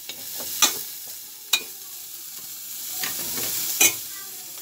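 Meat sizzling as it fries in oil in a stainless steel pot. A spoon stirs it and clinks sharply against the pot three times.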